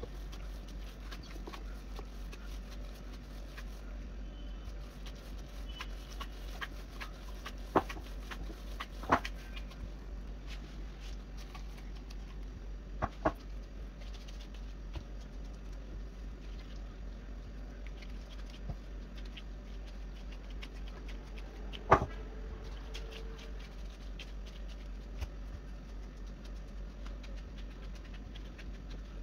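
Faint rustling with scattered clicks and knocks from gloved hands working crumbly dough in a glass bowl and on cling film laid on a stone countertop, over a steady low hum. A sharp knock about two-thirds of the way through is the loudest sound.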